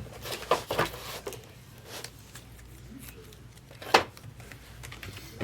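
Trading cards being handled: a few short rustles and clicks in the first second or so, then a single sharper snap about four seconds in.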